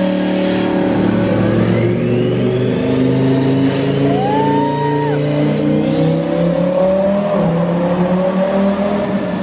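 Twin-turbo Lamborghini Huracán V10 running steadily at idle, its pitch lifting a little now and then.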